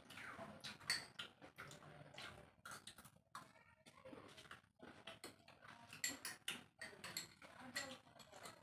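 Spoons clicking and scraping in small bowls, with the close, wet chewing and lip-smacking of people eating spicy potato chaat (aloo kabli). The sounds come as many short, irregular ticks.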